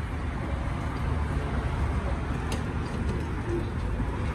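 Steady low rumble of background noise, with a faint click about two and a half seconds in.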